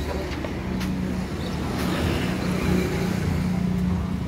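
A motor engine running steadily with a low, even drone, with a few faint clinks of metal gearbox parts being handled.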